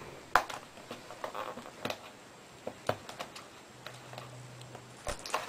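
Fingers picking and prying at a plastic blister pack holding a phone case: scattered light clicks and crackles of the plastic, the sharpest click about a third of a second in.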